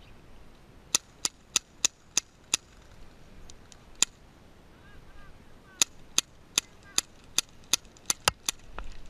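Airsoft guns firing single shots: a quick string of about six shots, one more a little later, then a longer string of about nine shots near the end.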